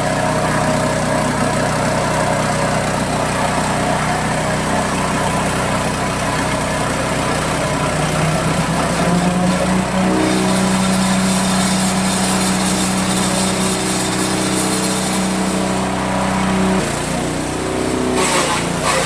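Multifunction chopper machine running steadily as it grinds shrimp paste. Its motor note rises about eight seconds in, with a hiss added over the middle stretch, then drops back near the end.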